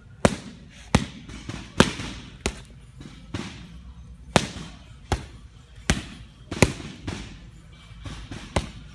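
Title boxing gloves punching a Title leather focus mitt: a dozen or so sharp slaps at an uneven pace of about one a second, each followed by a short echo.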